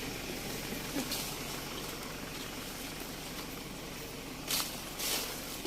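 An engine running steadily at idle with a low, even hum, and a few short clicks about a second in and again near the end.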